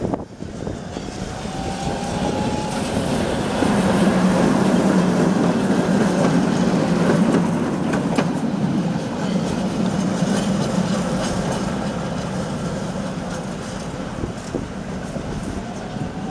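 A two-car Tatra T3SUCS tram set passing close by: steel wheels rumbling and clacking on the rails, with a faint rising whine near the start. It is loudest about four to eight seconds in as it goes past, then fades as it pulls away.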